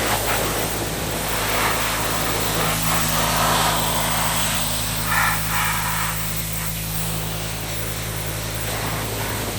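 Pressure washer running steadily with a constant low motor hum, its spray hissing against the car's body and rising and falling as the jet moves over it.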